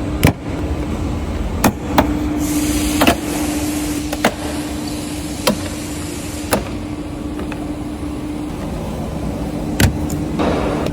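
Scattered sharp clicks and knocks of hand tools and plastic interior trim pieces being handled and pried, with a brief rustle about two and a half seconds in and another near the end, over a steady low hum.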